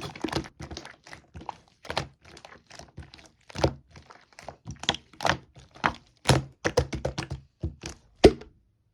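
Elmer's-glue slime being squeezed and pressed by hand, giving an irregular run of short clicks and pops, several a second, a few of them louder in the second half.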